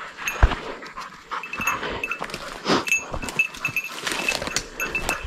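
Hunting dog close by as it moves through forest undergrowth, with footsteps and crackling twigs on leaf litter throughout. A short high ring recurs irregularly at the same pitch.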